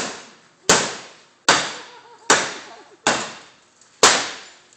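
A bat striking the sheet-metal body of an old pickup truck over and over: about six hard blows, each a little under a second apart, each ringing out briefly before the next.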